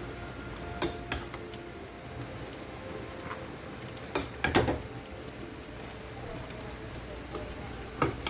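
A few sharp clinks and knocks of kitchen utensils on cookware, coming in pairs: two about a second in, two around four seconds in, and one near the end.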